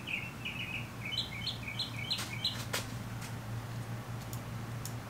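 A small bird chirping in quick repeated series, the notes stepping between two pitches before stopping about two and a half seconds in, over a steady low hum. A couple of light clicks come from the plastic net cup being handled on the bucket lid.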